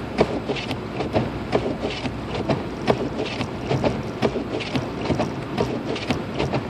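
Cabin noise of a car driving through a snowstorm: a steady rush of road and wind noise with frequent, irregular clicks and taps.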